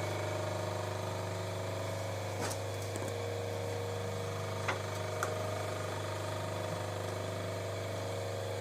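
Electric motor of an industrial class 332 post-bed shoe sewing machine humming steadily, with a few faint clicks.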